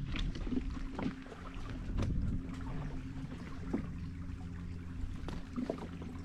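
Boat motor running steadily with an even low hum, with a few light knocks scattered through.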